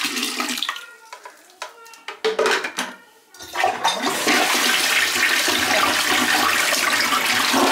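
Water rushing loudly and steadily, starting about three and a half seconds in, as from a toilet flush or running water.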